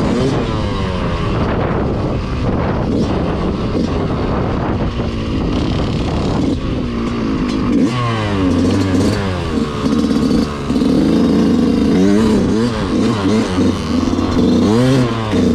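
Motorcycle engines revving up and down over and over, the pitch repeatedly rising and falling. From about halfway through, a steady low engine note runs underneath.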